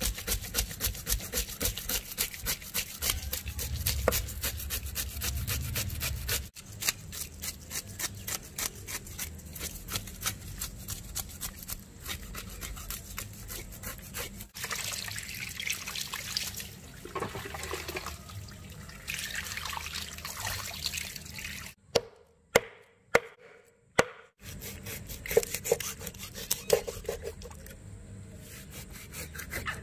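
Knife blade scraping scales off a grouper on a wooden board: a quick, even run of rasping strokes. About two-thirds through, a few sharp knocks with brief quiet between them.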